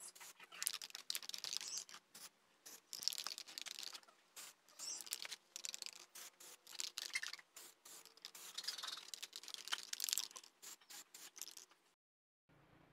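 Aerosol spray-paint can spraying in a series of short hissing bursts with brief pauses, laying the first coat over a scratch on a car bumper.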